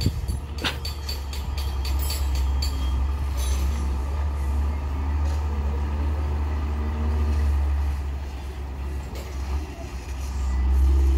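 Diesel dump trucks running as they approach on a gravel road: a steady low engine rumble that grows louder near the end. A few light clicks sound in the first few seconds.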